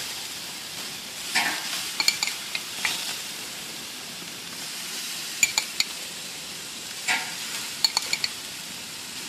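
Pork chops sizzling on a gas grill, a steady hiss with a couple of brief louder swells, and short ringing clinks of a metal utensil against a ceramic bowl of basting sauce in small clusters about two, five and a half, and eight seconds in.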